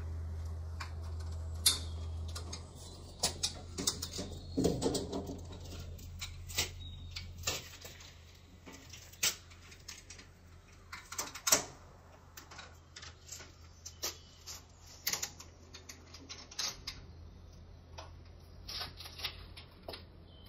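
Irregular metallic clicks, knocks and rattles of a bicycle being handled by hand at close range, over a low steady hum that fades after the first couple of seconds.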